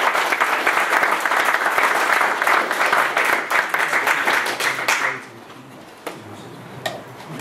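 Audience applauding, which dies away about five seconds in, followed by a couple of light knocks.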